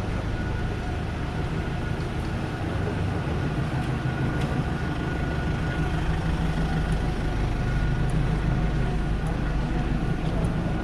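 Street traffic: a vehicle engine running close by as a steady low hum with a faint steady whine, over a constant wash of city street noise that grows slightly louder in the second half.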